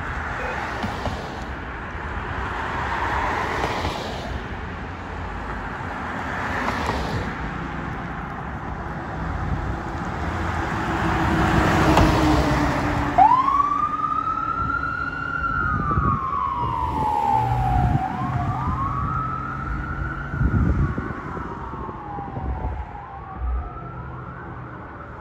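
Cars swish past, then an ambulance drives by about halfway through, its road noise at its loudest as it passes. Just after, its siren sounds in a slow wail, three cycles that each rise quickly and glide slowly down, the last one fading.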